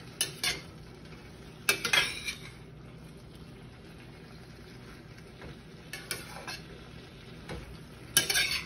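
Vegetable stew bubbling in a skillet with a steady low sizzle. A spoon clinks and scrapes against the pan in a few sharp strikes, loudest about two seconds in and near the end.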